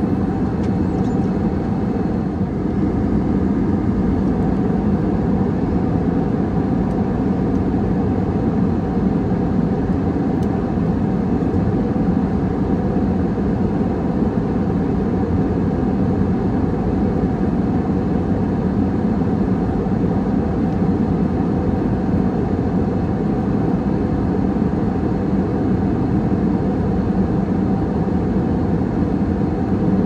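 Steady cabin noise of a jet airliner in cruise: the even rumble of engines and airflow heard from inside the cabin, deepest and strongest low down, with a few faint steady hums and no change throughout.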